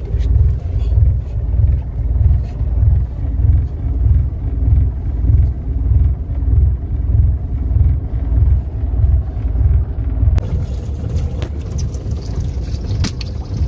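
A fishing boat's engine idling: a low rumble that throbs about three times every two seconds, easing to a steadier rumble after about ten seconds, with a few sharp clicks near the end.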